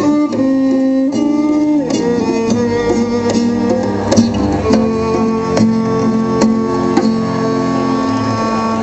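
Live acoustic string music: a guitar plucking notes under bowed strings, violin and cello, that hold long sustained notes.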